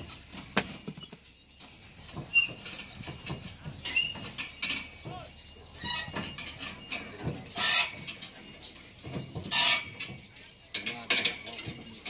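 Irregular metallic knocks and clanks of steel scaffolding pipes and clamps being handled, with two louder, longer clanks in the second half.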